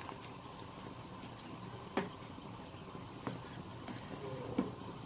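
Steel spatula knocking and scraping lightly against a steel pot a few times while rice vermicelli is stirred in boiling water, over a faint steady hiss.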